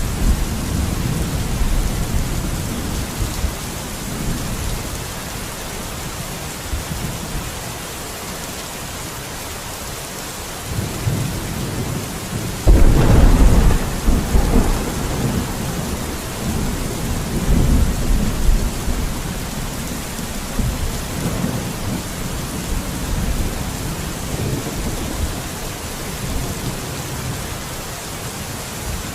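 Steady heavy rain with thunder. A rumble dies away over the first few seconds, then about halfway through a sudden loud thunderclap breaks out and rolls on in rumbles for several seconds before easing back to the rain.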